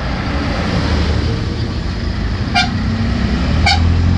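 Motor vehicle engine running with steady road rumble, and two short vehicle horn beeps about a second apart in the second half.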